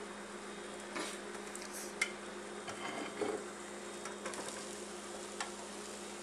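Faint steady sizzling of catfish nuggets cooking in a closed electric contact grill, over a low steady hum. A few light clicks and knocks come as a plate is set on the counter and the grill lid is handled.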